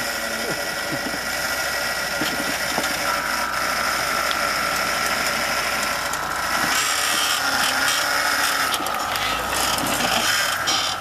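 Four-wheel-drive off-road vehicle's engine running as it crawls over rocks, with a steady high whine that steps up in pitch about three seconds in, and some rattling and clicking.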